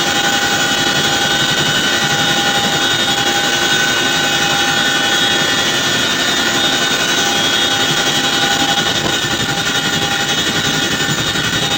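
Helicopter heard from inside the cabin, running steadily: a dense rushing noise with a steady high whine and a fast, even rotor beat, easing slightly about nine seconds in.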